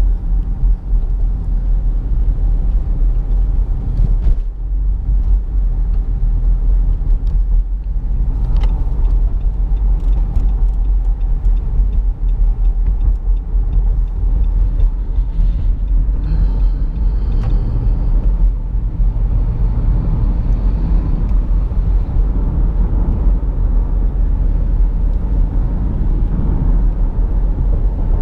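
Steady low rumble inside the cabin of a running 2017 Nissan Rogue.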